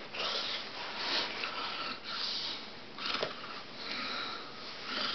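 A person breathing hard in and out, a hissy breath about once a second, with a soft bump about three seconds in.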